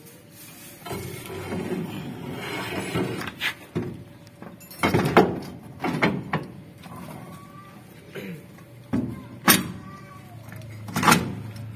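A new rear axle shaft being slid into a Mitsubishi L300's axle housing and its hub and bearing seated against the brake backing plate. There is a stretch of metal scraping, then several sharp metal clunks that ring briefly.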